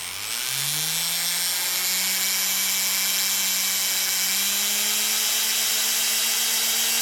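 A small electric power tool motor spins up just after the start, its pitch rising, then runs at a steady speed with a high whirring hiss and a slight further rise in pitch.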